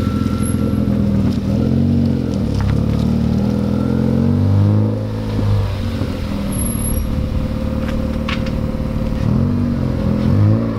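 Honda Civic Si's K20 four-cylinder engine running through an aftermarket Invidia N1 catback exhaust and RV6 downpipe, revved several times so the pitch rises and falls, settling back between blips.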